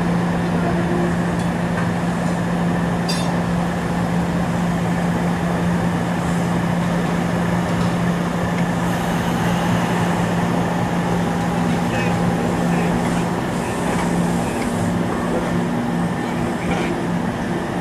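SEPTA Kawasaki subway-surface streetcar standing and creeping forward, giving off a steady low electrical hum over a background of street noise; the hum drops away about three-quarters of the way through.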